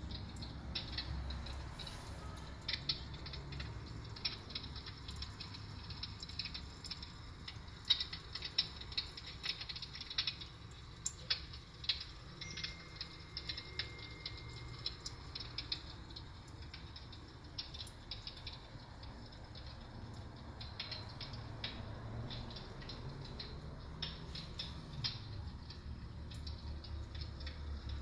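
Dimplex Cassette 500 electric fireplace's built-in sound effect: irregular crackles and pops of burning logs, over a faint low steady hum.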